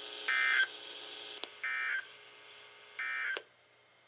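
Emergency Alert System end-of-message code over NOAA Weather Radio: three short raspy digital data bursts, about 1.3 seconds apart, signalling that the warning message is over. A faint radio hiss lies between the bursts and cuts out after the third.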